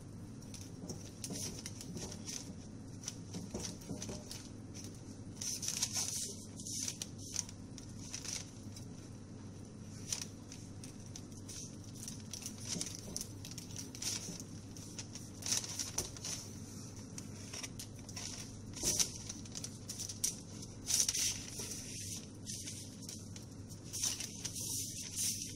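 A kitchen knife cutting through layers of unbaked, oiled phyllo pastry in a baking tray: crisp rustling and crackling crunches in short spurts, over a steady low hum.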